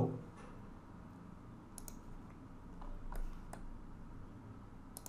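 A few faint, sharp computer mouse clicks spaced out over quiet room tone: a quick pair about two seconds in, a few more past three seconds, and one near the end.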